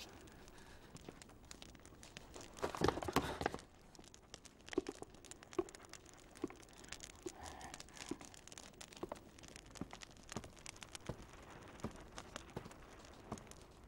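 Fire crackling in a fireplace as a paper bundle of banknotes burns, with scattered sharp pops throughout. A louder burst of noise lasting about a second comes about three seconds in.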